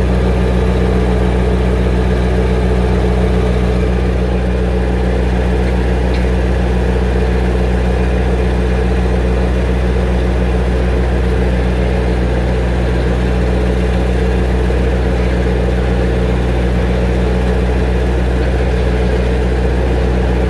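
Four-cylinder gasoline engine of a 1956 Ferguson TO35 tractor idling steadily, close up.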